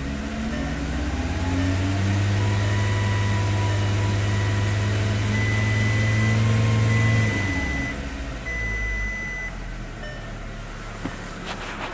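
A 2006 Volkswagen Beetle's 2.5-litre five-cylinder engine being revved. It climbs in the first two seconds, holds steady for about five seconds, then drops back to a lower idle. A few clicks come near the end.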